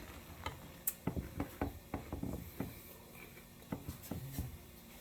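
Eating a spoonful of cereal with milk: a light spoon click, then a run of crunching chews.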